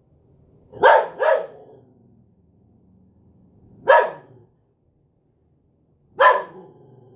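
A dog barking in short, sharp barks: a quick pair about a second in, then single barks near four and six seconds, with a faint low sound between them.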